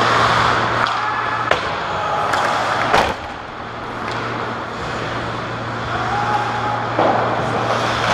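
Ice hockey play on a rink: skate blades scraping the ice and sharp clacks of sticks and puck, the loudest about three seconds in, over a steady low hum.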